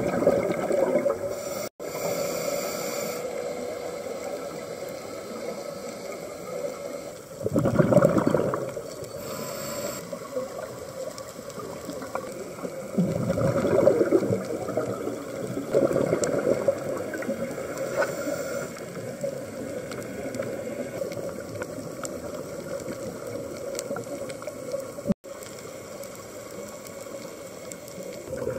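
Underwater sound of a scuba dive: gurgling bubbles from divers' regulators over a steady water hiss, with louder gushes of exhaled bubbles about 8 and 14 seconds in.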